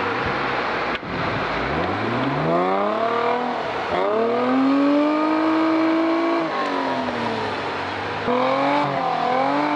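Off-road 4x4's engine revving hard: the pitch climbs steeply about two seconds in, holds at high revs, drops back, then revs up again, wavering, near the end.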